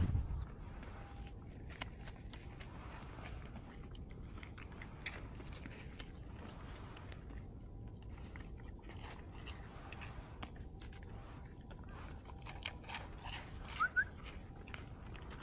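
Sika deer biting and crunching dry deer crackers (shika senbei), a run of faint crisp crunches and clicks.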